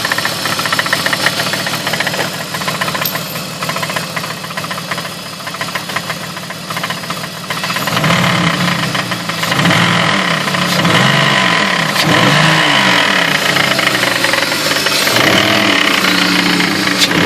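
2003 BMW E46's 2.5-litre inline-six idling with a fast, steady knocking from the front of the engine, then revved up and down several times from about halfway in. The owner suspects a failing water pump, which leaks a little.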